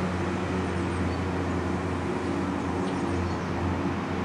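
Steady low engine hum of a motor running at a constant speed, with a faint even hiss over it.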